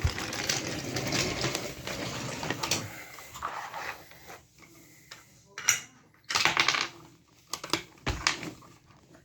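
Wooden and plastic toy train pieces clicking and rattling as they are handled and a toy crane is worked to load cargo. A dense run of rapid clicks comes first, then a few separate clacks and short clatters in the second half.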